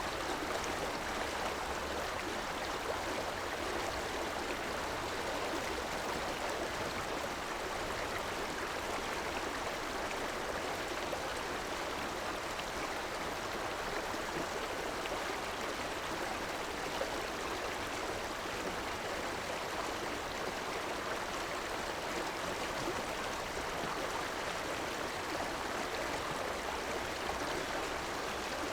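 River water flowing and burbling in a steady rush, with no distinct events.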